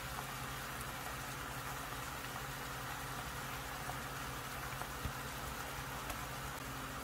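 Soy-based sauce with sliced onions bubbling and sizzling at a rapid simmer in a nonstick frying pan, a steady crackling hiss. A few light clicks of a utensil against the pan as it is stirred, about halfway through, with a low steady hum underneath.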